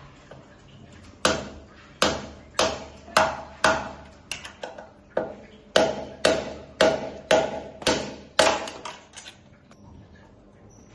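A hammer striking metal repeatedly, about two blows a second for some seven seconds, each with a short metallic ring, as headset bearing parts on an e-bike front fork are driven in or out.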